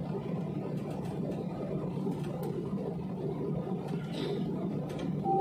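Jet airliner's engines and cabin ventilation running steadily as it taxis, heard from inside the passenger cabin: an even low rumble with a few faint ticks.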